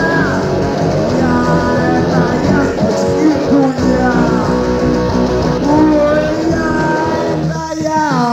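Punk rock band playing a studio recording: electric guitar, bass and drums, with a lead line that slides and bends in pitch. Near the end the bass drops away under a falling slide.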